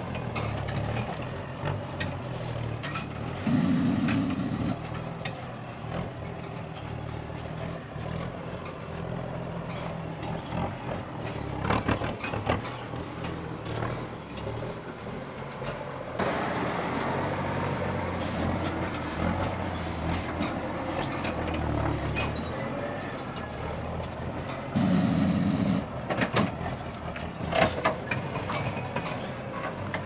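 M35A2 6x6 army truck, loaded with sugar cane, running at low speed as it crawls over a rocky track, with scattered knocks and clanks. Twice a louder sound of about a second breaks in, and the engine grows louder about halfway through.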